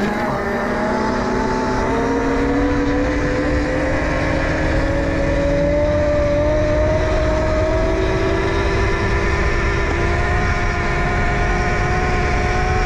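Electric pit bike's 72-volt, 5000-watt motor whining, a stack of tones climbing slowly and steadily in pitch as the bike gains speed, over a steady low rush.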